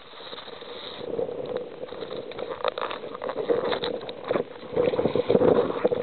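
Rustling and small knocks of a hand handling the recording phone over its microphone. Irregular, and louder in the last second or so.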